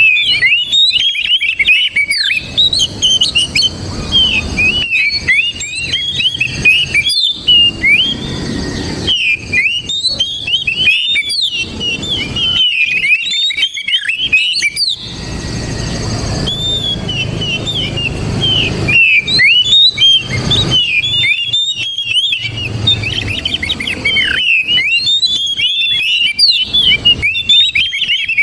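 Oriental magpie-robin (kacer) singing a rapid, varied stream of high whistled notes, broken by brief pauses.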